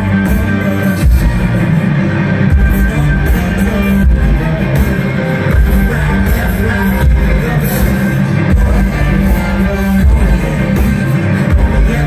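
Live rock band playing loud through the PA: distorted electric guitar over a heavy, pulsing beat, with a woman singing.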